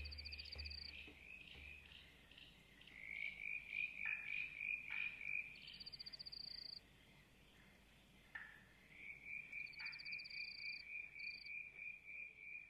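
Frogs calling faintly: a steady rhythmic croaking chorus of quick repeated pulses, with a short, fast, higher trill that recurs every few seconds.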